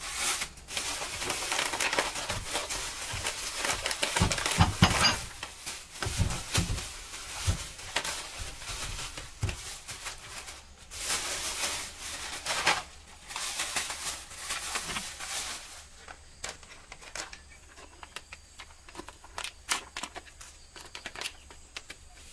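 Thin plastic bags rustling and crinkling as they are handled and pulled open, with a few dull thumps between about four and ten seconds in. After about sixteen seconds the rustling thins to scattered light crackles.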